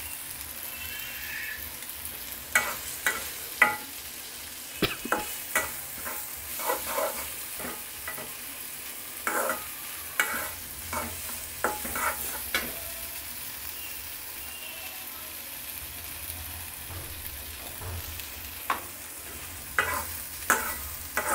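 A spatula scraping and knocking irregularly against a karai as a mash of fish, onion and green chilli is stirred and fried, over a steady low sizzle.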